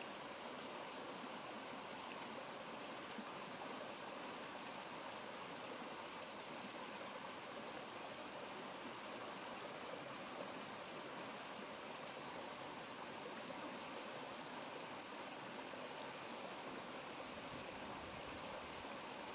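Steady rushing of a flowing stream, an even wash of water noise that does not change.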